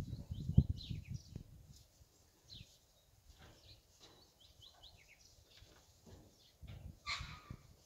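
Fighting bulls feeding at a trough: irregular low crunching and knocks in the first second and a half and again near the end, with small birds chirping throughout. A short harsh hiss-like burst comes about seven seconds in.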